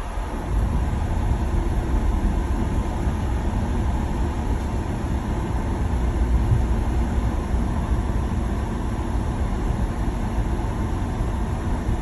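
Steady low rumble of a 2017 Ford Explorer XLT heard from inside the cabin, with no separate repeating noise standing out above it.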